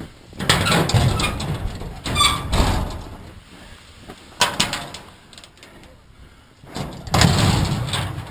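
Heavy metal door being handled and opened, with a brief squeak a little over two seconds in and a sharp knock about halfway through, among loud rustling and clattering.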